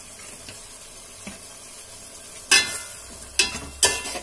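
Onion-tomato masala frying in a metal pot with a faint sizzle, then a metal spoon stirring freshly added garam masala into it: three loud scraping clatters of spoon on pot, starting about two and a half seconds in.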